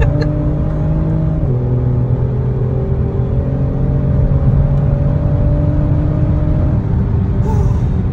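Car engine droning steadily, heard from inside the cabin, with road rumble underneath; its pitch drops a little about a second and a half in, then holds.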